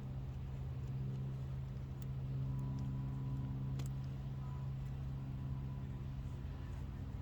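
A steady low mechanical hum with a few light clicks, about two and four seconds in.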